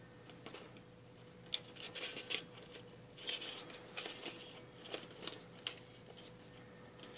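A sheet of printer paper rustling and crackling as it is handled and folded along its creases into a tiny booklet, in a string of short, sharp crackles through the middle few seconds.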